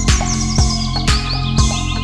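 Electronic background music with a steady kick-drum beat about twice a second under sustained synth tones, with high bird-like chirps over it.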